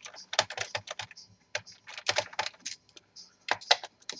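Irregular clusters of short, sharp clicks and taps from a screwdriver working screws out of a laptop's plastic bottom case.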